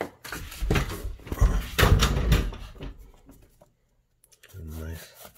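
Handling noise of a handheld phone being moved: rustling and bumps over a low rumble for about three seconds. After a short pause comes a brief hummed voice sound near the end.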